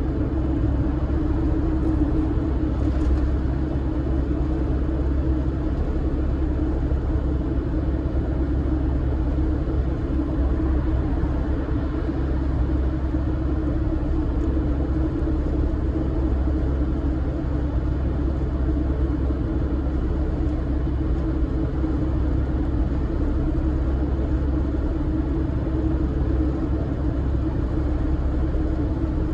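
Camper van driving along a road, heard from inside the cab: a steady rumble of engine and tyres with a low drone that holds even throughout.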